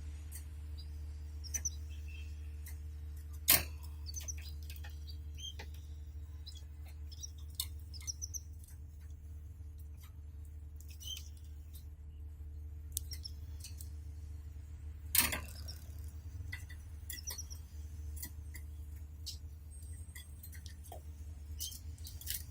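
Canaries in a cage making scattered short, high chirps among small clicks and rustles, with two sharp knocks, one a few seconds in and one about two-thirds through. A steady low hum runs underneath.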